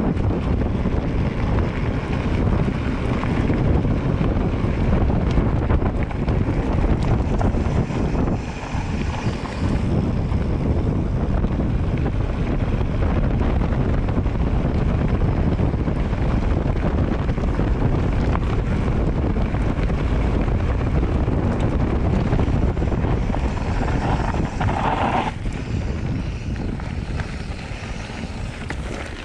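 Steady rushing wind buffeting the microphone, heaviest in the low end.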